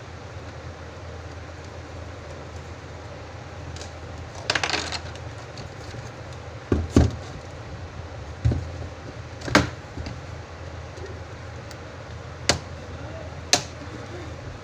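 Scattered sharp clicks and knocks of a Compaq 510 laptop and small tools being handled as the laptop is opened up for a keyboard change, over a steady low hum.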